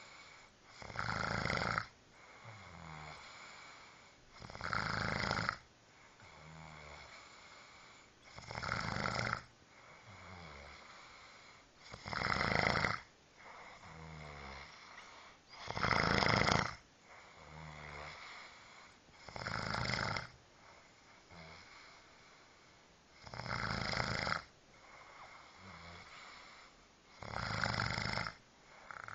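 Snoring in a steady rhythm: a snore about every four seconds, eight in all, with quieter breathing between them.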